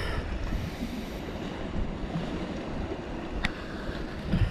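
Wind buffeting the microphone over a steady wash of sea surf, with one faint click about three and a half seconds in.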